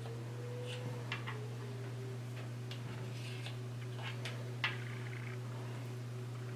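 Wind-up mechanical alarm clock giving light, irregularly spaced clicks and ticks, about a dozen, over a steady low hum.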